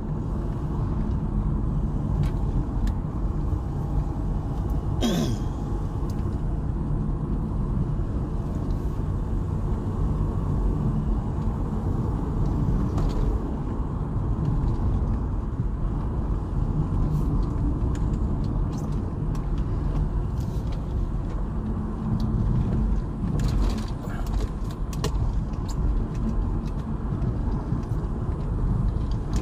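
Steady road and engine noise heard inside a moving car's cabin. A single short, sharp sound comes about five seconds in, and a few light clicks come near the end.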